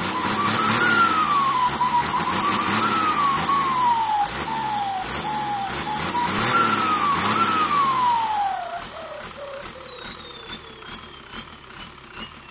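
Turbocharger on a Ford tractor diesel engine being test-revved: the engine is blipped several times in quick succession, and each time the turbo whine shoots up in pitch, then sinks slowly as the revs drop. About eight seconds in the revving stops; the engine settles to a quieter, evenly pulsing idle while the turbo whine winds down.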